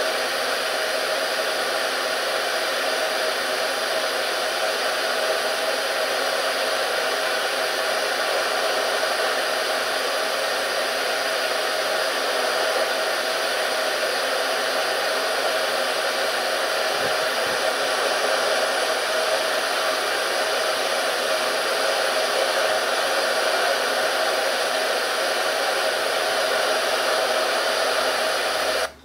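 Steady rushing noise with a few faint steady tones from a harbor webcam's live audio, played through computer speakers. It cuts off suddenly near the end.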